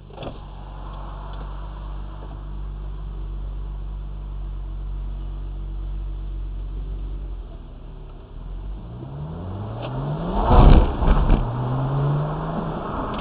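Audi A4 with a decatted JUN BL exhaust, heard from inside the cabin, idling steadily and then accelerating, with revs climbing from about eight seconds in. A loud burst of noise comes about ten and a half seconds in, and the revs climb again near the end.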